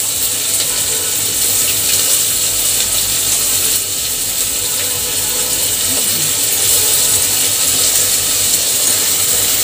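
Sliced onions sizzling steadily in hot oil in an aluminium pressure cooker.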